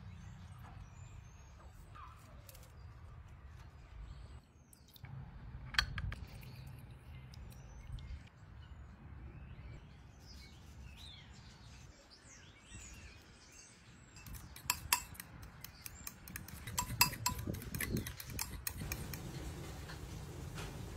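Kitchen utensils clinking and tapping over a low steady hum, with a few clicks near the middle and a quick run of clinks in the last few seconds. Faint bird chirps can be heard in the background.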